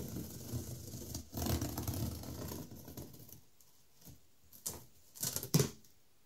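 Large cardboard carton being opened by hand: about three seconds of cardboard and packing tape rustling and scraping, then a few sharp knocks and taps against the box.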